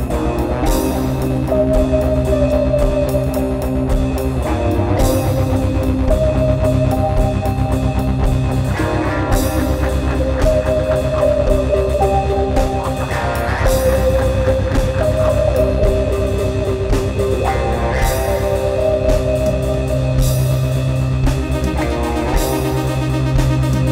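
Instrumental improvised rock jam: guitar and keyboard holding sustained notes over a drum kit, with a cymbal crash about every four seconds.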